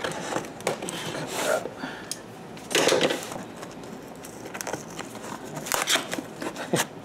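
Cardboard box being cut and pried open by hand with scissors: irregular scraping, tearing and rustling of the card, loudest about three seconds in, over the steady noise of an air conditioner.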